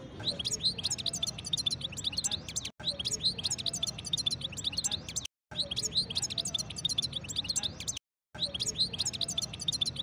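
Caged European goldfinch singing: a fast, continuous twittering of high chirps and trills, broken by three brief total silences.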